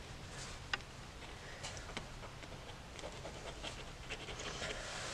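Paint-filled pen nib (Derwent Graphik Line Painter) scratching faintly over mixed media paper in short strokes, with a few small ticks as the nib touches down, the clearest about a second in.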